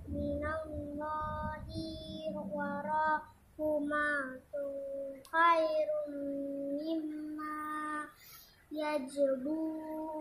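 A boy reciting Quran verses aloud in a melodic Arabic chant, holding long steady notes and breaking off twice for breath.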